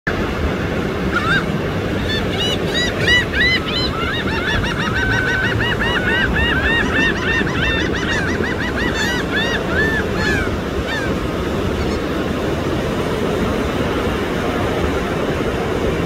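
Laughing gulls calling: a long run of quick, repeated laughing notes that starts about a second in and stops near the eleven-second mark, over the steady wash of surf.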